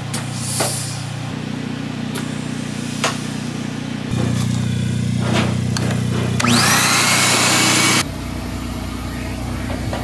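Steady low machine hum with a few sharp clicks. About six and a half seconds in, a shop vacuum switches on: its motor whine rises quickly to a loud steady rush, then cuts off suddenly about a second and a half later.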